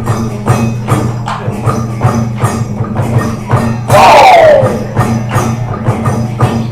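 Lion dance percussion: a drum beating steadily under cymbal clashes at about four strikes a second. About four seconds in, a loud ringing tone falls in pitch.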